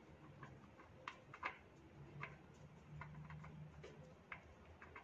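Faint scattered clicks and light taps of a gloved hand turning an oil filter off its mount on the engine, with a faint low hum in the middle.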